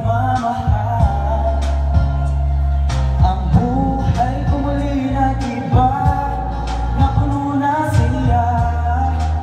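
A man singing into a handheld microphone over a backing track with steady bass notes and drum beats.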